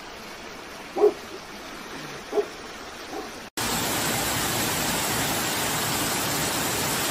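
Fast-flowing floodwater in a swollen river, a quiet steady rush, with a dog giving two short barks about 1 and 2.4 seconds in. About halfway through it cuts abruptly to a much louder, steady rush of heavy rain and running water.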